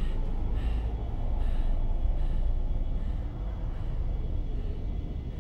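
A steady low rumble, with short breathy puffs about every 0.8 s in the first two seconds, like a person panting.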